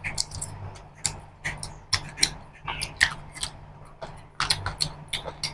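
Close-up wet chewing and lip smacking while eating chicken curry and rice by hand: irregular sharp smacks and clicks, two or three a second.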